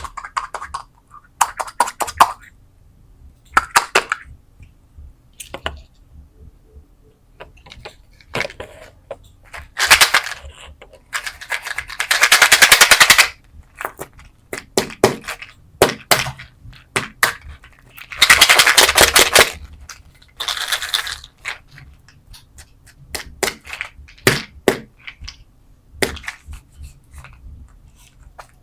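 Candies rattling and clattering in quick runs of sharp clicks, with two longer, dense rattles about 12 and 18 seconds in.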